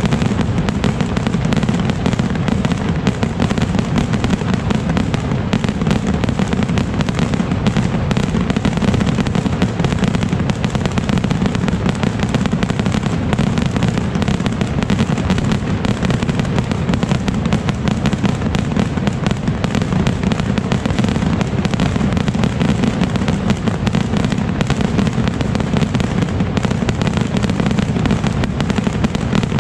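A dense, non-stop barrage of firework rockets launching and bursting. The many bangs merge into a constant low rumble with crackle on top, never pausing.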